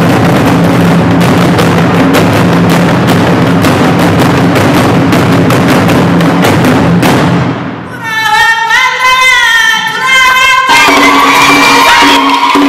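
Loud outro music. A dense, busy passage with many fast beats gives way about eight seconds in to a single melodic line that glides up and down, and a fuller phrase comes in near the end.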